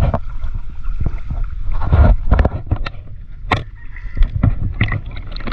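Water splashing and lapping against the hull of a small paddled wooden outrigger canoe, in irregular splashes over a low rumble.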